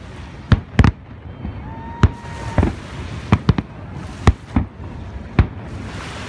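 Aerial fireworks shells bursting, about ten sharp bangs in irregular succession, some in quick pairs.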